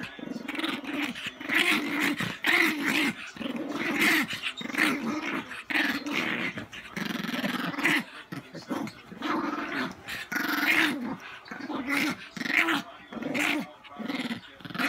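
Small dog play-growling in a string of short growls, about two a second, as it mouths at hands while being ruffled. The growling is mock aggression in play, not a real threat.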